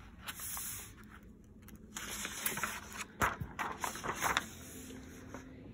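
Pages of a hardcover picture book being turned by hand: paper rustling and scraping in two stretches, a short one near the start and a longer one from about two seconds in, with a few sharp taps as the page falls.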